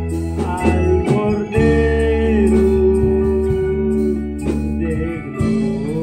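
Live church worship band playing a slow hymn, with trumpet, keyboard, electric guitars, bass and drums, and singing over it.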